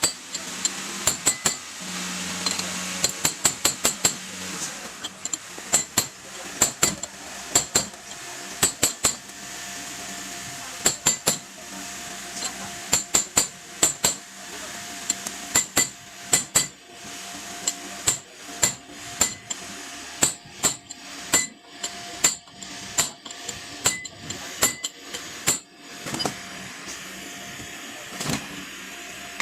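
Hand tools knocking and clicking on metal while a car's AC compressor is being removed: sharp metallic strikes in short irregular bursts of several a second, some with a bright ring.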